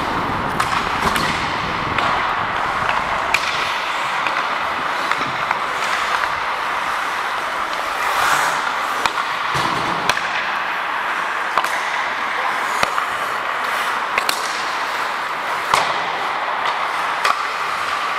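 Ice hockey play heard close up on a skating referee's helmet microphone: a steady rush of skate blades on ice and moving air, with frequent sharp clacks of sticks and puck and the odd knock against the boards.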